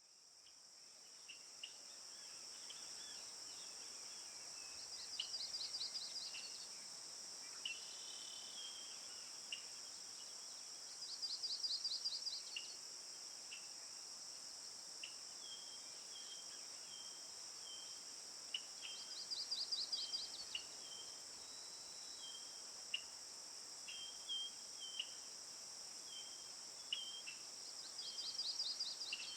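Outdoor nature ambience: a steady high-pitched insect drone, with a bird singing a short rapid trill four times, about every seven or eight seconds, and scattered short chirps.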